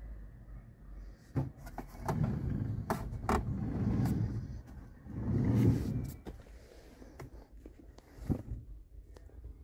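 Handling noise inside a van: low rumbling from a hand-held phone being moved, with a scattering of sharp clicks and knocks, the loudest near the middle.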